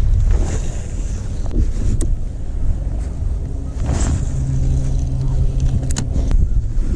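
Steady low rumble of a running vehicle, with a low hum rising out of it about four seconds in and a couple of sharp clicks.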